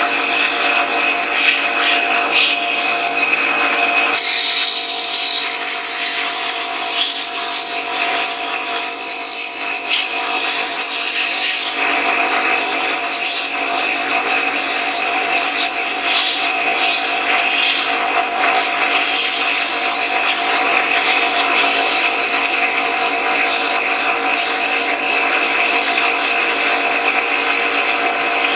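Sandblaster blasting abrasive onto the pistol's metal parts, a steady loud hiss over a constant machine hum. The sound changes abruptly twice, about 4 and 12 seconds in.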